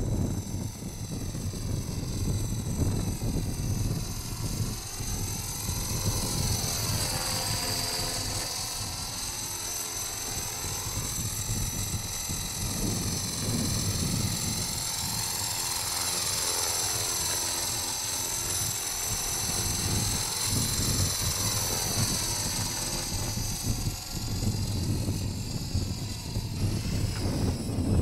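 E-flite Blade CP Pro electric RC helicopter in flight: the high-pitched whine of its Feigao brushless motor and gears with rotor noise, the pitch sliding up and down as it passes and manoeuvres. Wind buffets the microphone with a low rumble underneath.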